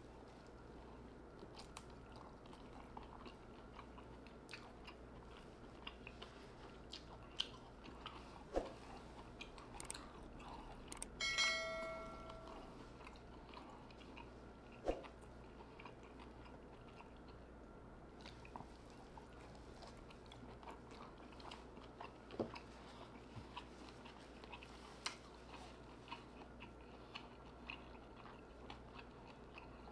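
Close-miked chewing and biting of lobster meat: soft wet mouth sounds with scattered lip smacks and sharp clicks. A short ringing chime sounds about a third of the way through.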